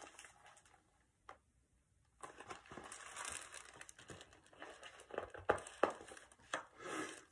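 Paper pages of a picture book being handled and turned: after about two seconds of near quiet, soft rustling begins, with a few sharp page flicks near the end.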